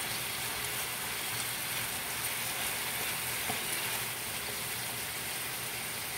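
Chicken pieces and potatoes in a honey sauce sizzling steadily in a nonstick frying pan while being stirred with a wooden spatula, with a faint tap about halfway through.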